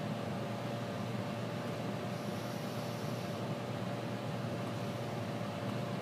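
LG microwave oven running: a steady hum with a constant mid-pitched tone, and a faint high hiss that swells briefly about two seconds in.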